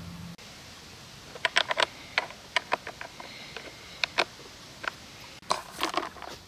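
Sharp, light metallic clicks and taps in irregular clusters as a combination scrench is fitted over and turns the bar nuts on a Poulan chainsaw's side cover during reassembly.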